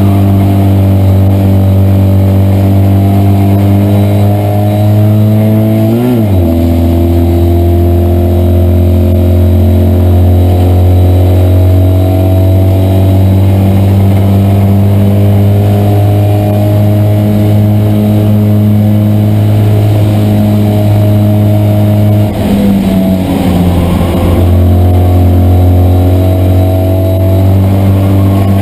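Citroën 2CV race car's air-cooled flat-twin engine running hard under racing load, heard from inside the car, its note climbing slowly. The note breaks briefly about six seconds in and again a little past twenty seconds, then carries on.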